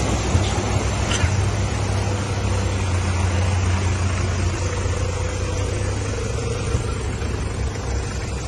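4x4 vehicles, a snorkel-fitted pickup among them, with engines running as they wade through deep floodwater: a steady low engine hum under the rush and slosh of water.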